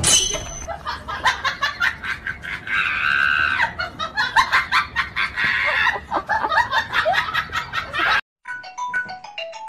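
Repeated bursts of laughter, rapid and pulsing, dubbed over the clip. After a sudden break near the end, a short tune of separate high notes like a phone ringtone begins.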